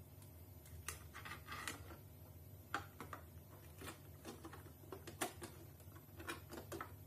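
Faint, scattered light clicks and taps of hands working at a small plastic RC car's body and chassis, over a steady low hum.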